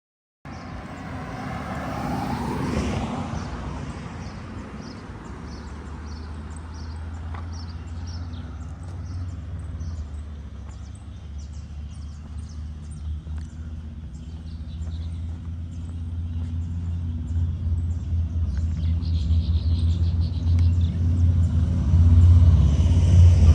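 A vehicle passes close by about two seconds in, over a steady low rumble that grows louder toward the end. Quick high chirps repeat about three times a second through the first half.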